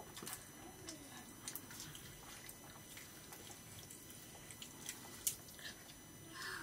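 Faint scattered clicks and taps of hands eating rice from metal plates, with one sharper click a little after five seconds in.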